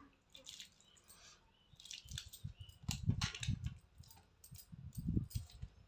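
Eating pakhala (rice soaked in water) by hand: soft, irregular wet squelches and chewing sounds begin about two seconds in, with light clinks of bangles on the wrist.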